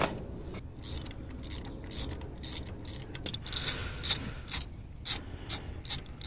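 Ratchet wrench clicking in short strokes, about one click every half second, working a spark plug in or out of the engine.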